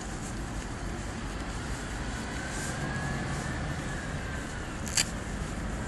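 Steady road-traffic noise with a low rumble, with a faint whine that rises and falls in the middle and one sharp click about five seconds in.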